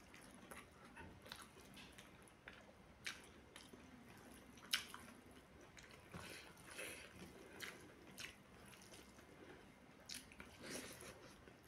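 Faint close-up eating sounds of a person chewing a mouthful of rice and curry: soft chewing with scattered wet mouth clicks and lip smacks, the sharpest click a little under five seconds in.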